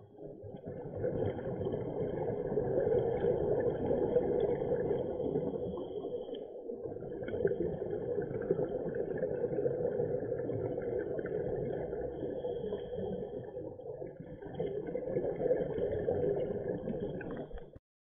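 Muffled rumbling noise of a scuba diver's breathing and exhaled bubbles, heard underwater through a camera's waterproof housing. It eases briefly twice, between breaths, and cuts off suddenly just before the end.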